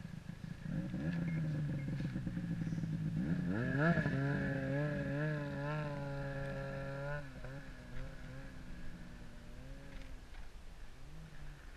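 Ski-Doo Rev MX Z snowmobile engine running, revving up about three and a half seconds in as the sled pulls away. Its pitch rises and falls for a few seconds, then the sound drops and fades as the sled moves off.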